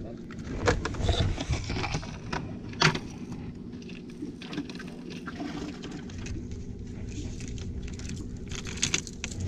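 A boat engine running steadily at low revs, with scattered sharp clicks and small metallic rattles of fishing tackle being handled, a few of them louder, about a second and three seconds in and again near the end.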